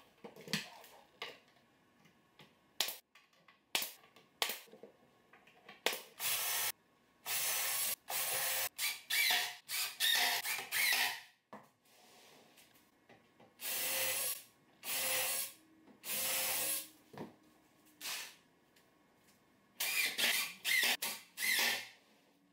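Cordless drill/driver running screws through the side panel of a prefinished maple plywood cabinet box: several short bursts of about a second each with a rising whine, in three groups. A few sharp knocks of plywood panels being handled come in the first few seconds.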